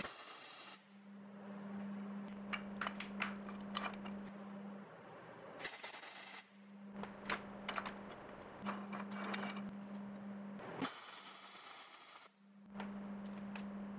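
MIG welding arc hissing and crackling in three short bursts, at the start, about six seconds in and about eleven seconds in, as tack welds join a steel handle to a hatch door. Scattered sharp ticks fall between the bursts, over a steady low hum.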